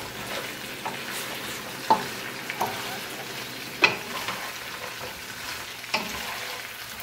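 Fried chicken pieces sizzling in a nonstick wok while being stirred with a wooden spatula: a steady sizzle with scattered knocks and scrapes of the spatula against the pan, the loudest about four seconds in.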